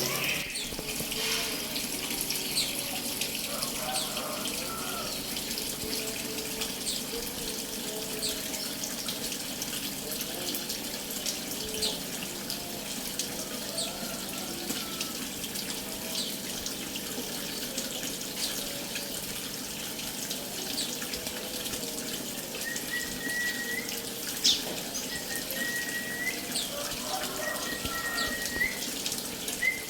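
Water running steadily for a bird bath, with short high chirps over it and a thin high note repeated a few times near the end.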